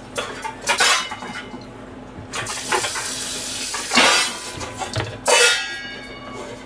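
Kitchen tap running for about two seconds mid-way, among several short clatters of dishes and utensils; one clatter a little after five seconds in rings briefly like metal.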